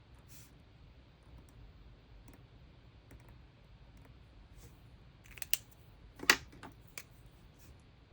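Small plastic brush pens being handled: a few sharp clicks of pen caps and pens against the desk, a quick cluster about five and a half seconds in, the loudest single click just after six seconds and one more near seven seconds, over faint ticking.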